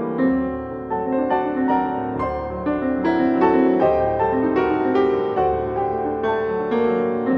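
Piano music: a steady flow of notes, each struck and left to fade.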